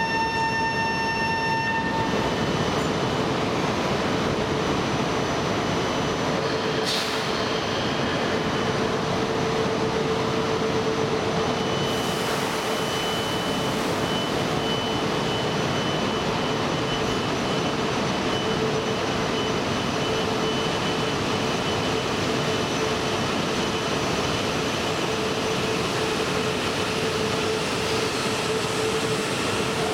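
E4 series Max Shinkansen standing at a station platform with a steady hum of equipment, and a station chime stopping about two seconds in. Near the end the train starts to pull out, and a rising motor whine begins.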